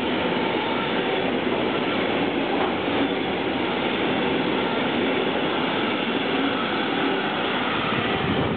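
Freight train of tank containers on flat wagons passing on the near track: steady noise of the wagons' wheels running on the rails.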